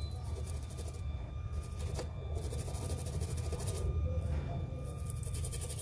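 Steady low hum of bench equipment with four spells of fast, scratchy scrubbing, each about a second long, as the repaired area of a phone logic board is cleaned.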